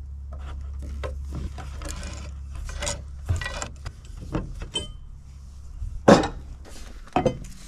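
Metal clicks and scrapes of adjustable pliers gripping and turning a black iron pipe fitting, then of the iron fittings handled by hand, with a sharp knock about six seconds in, over a steady low hum.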